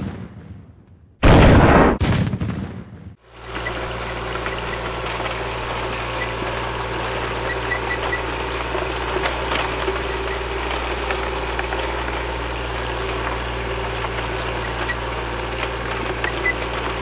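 A tank cannon blast about a second in that dies away over two seconds, followed by a steady low tank engine rumble.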